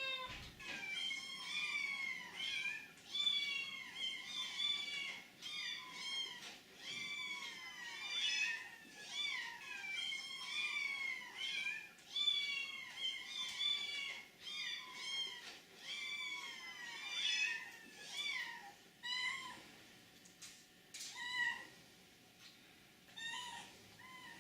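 A cat meowing over and over in short, high-pitched mews, about one or two a second, thinning out and getting fainter in the last few seconds.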